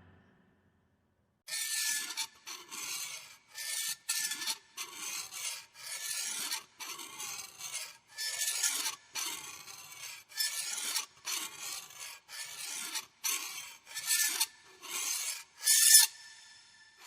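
Scary ghost sound effect: a long run of short, uneven rasping scratches starting about a second and a half in, the loudest one near the end.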